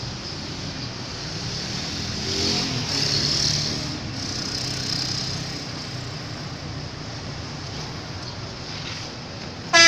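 Bus engines running amid steady outdoor noise, which swells for about two seconds a couple of seconds in. At the very end a bus's loud multi-tone telolet horn bursts in.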